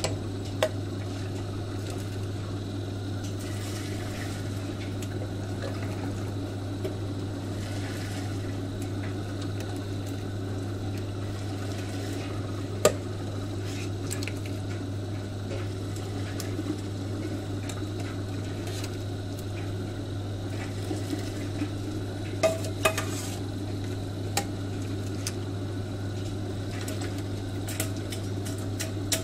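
Milky carp soup boiling in a stainless steel stockpot while a metal scoop dips into it, with a few sharp clinks of metal on the pot and strainer, over a steady low hum from the hob.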